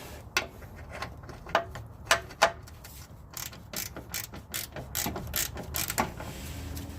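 Ratchet wrench clicking in short strokes as the sway bar bushing bracket bolt is tightened down to torque spec, a run of quick sharp clicks that comes faster and louder from about halfway in.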